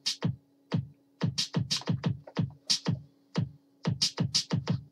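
Computer keyboard keys clacking in quick, uneven runs, each stroke a short click with a low thud, over a faint steady hum.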